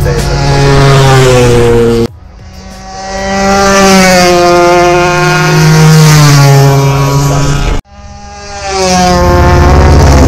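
Racing motorcycle engines at high revs passing close, their pitch rising and falling through gear changes. The sound cuts off abruptly twice, about two seconds in and near the eighth second, and each time swells back up as another bike approaches.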